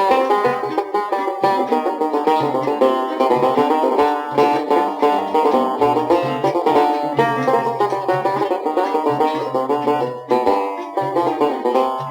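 Instrumental passage of an Algerian chaabi song: an ensemble led by a fast plucked-string melody, with a low bass line coming and going underneath.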